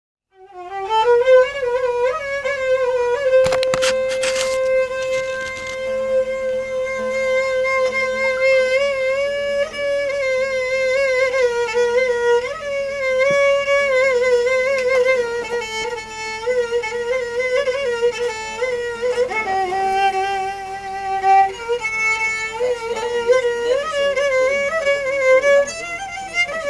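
Violin playing a slow Greek folk melody of long held notes with ornaments and slides. It comes in about half a second in, after a moment of silence.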